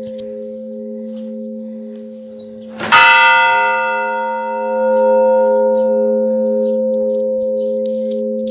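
Church bell struck once about three seconds in, its many overtones ringing out and slowly fading over the steady, pulsing hum of bells still sounding.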